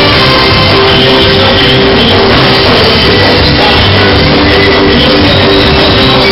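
Loud live band music with guitar.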